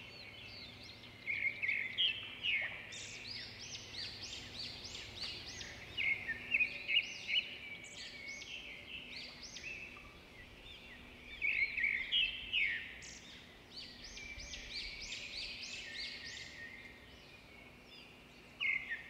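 Small birds chirping in busy bursts of quick high twitters, with quieter stretches of scattered calls between.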